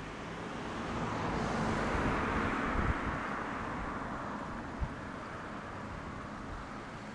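A car passing by on the street: tyre and engine noise swells to a peak about two seconds in and fades away. Wind buffets the microphone, with a couple of short low thumps.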